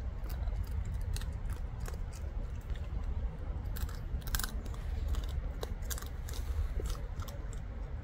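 Raccoons chewing crabs they have caught, with irregular sharp crunches and clicks of shell breaking, one louder crunch about four seconds in, over a steady low rumble.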